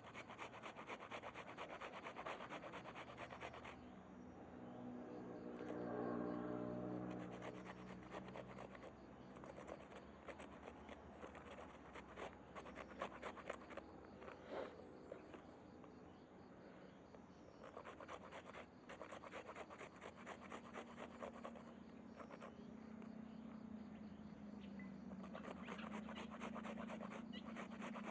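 Shallots being rubbed back and forth on a hand grater: faint, quick rasping strokes in runs, broken by short pauses. A low hum swells and fades about six seconds in.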